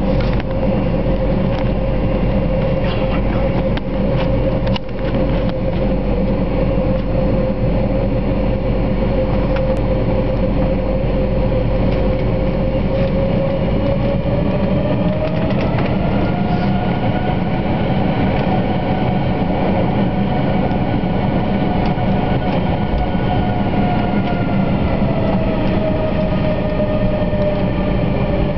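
Airbus A321 jet engines heard from inside the cabin while the airliner taxis: a steady low rumble with an engine whine that rises in pitch about halfway through, holds, then drops back near the end as thrust is raised and eased off.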